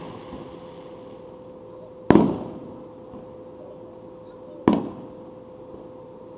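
Aerial fireworks shells bursting: two sharp booms about two and a half seconds apart, each trailing off over about half a second, with a steady faint tone underneath.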